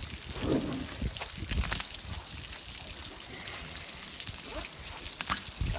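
Water pouring in a steady trickle from a boat's hull drain hole and splashing onto gravel and grass, with a couple of brief clicks.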